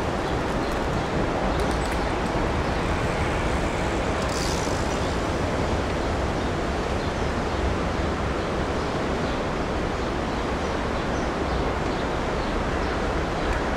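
Steady rushing outdoor noise, mostly wind on the microphone, over a low rumble from the street.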